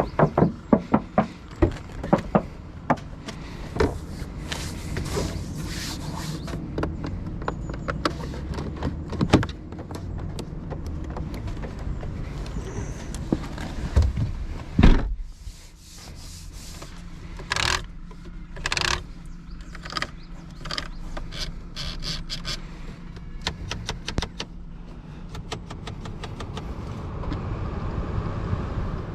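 Toyota GR Supra's 3.0-litre turbocharged straight-six running, a steady low hum, with a run of sharp clicks and knocks near the start and a heavy thump about halfway, followed by two short louder bursts of noise and some scraping; the owner presents it as the car's knocking sound.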